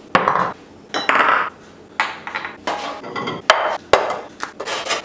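Orange peel being grated on a stainless steel box grater: a run of quick rasping strokes from about two seconds in, after a couple of knocks and scrapes of the grater and plate in the first second and a half.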